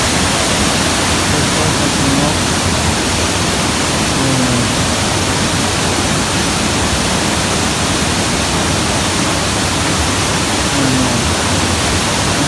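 Waterfall water rushing steadily, a loud even hiss spread across all pitches with no let-up.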